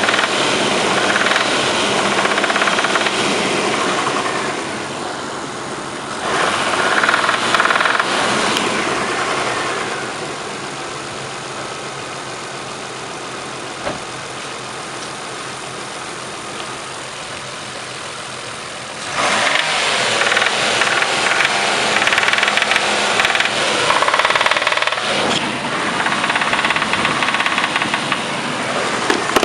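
Car engine running with a knock in it, its speed raised and let back down a few times, with a quieter stretch in the middle.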